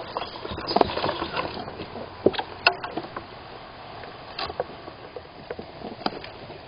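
A squirrel moving about inside a wooden nest box: its claws scratch and tap on the wood, and its body rustles against the walls, in irregular clicks and scrapes over a steady hiss.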